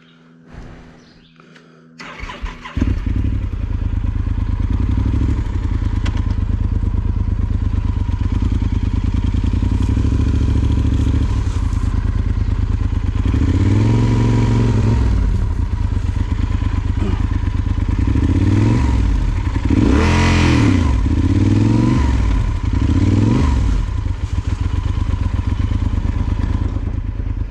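Yamaha Super Ténéré XT1200Z parallel-twin engine starting about two seconds in, then running with the throttle opened and closed several times, the revs rising and falling in spells in the middle and later part.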